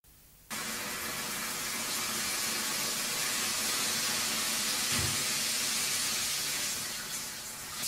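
Steady hissing noise that sets in sharply about half a second in and holds level, with a brief low thump about five seconds in: the intro texture of a recorded song before the music begins.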